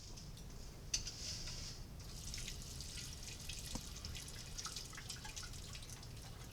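Wash water poured from a pan of aggregate over a nest of No. 16 and No. 200 sieves: a brief pour about a second in, then water trickling and dripping through the sieve mesh. This is the decanting step of hand-washing the fines out of the sample.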